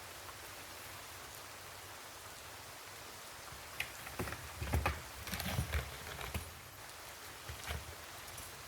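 Steady rain hiss, with a cluster of soft low thumps and taps a little past the middle.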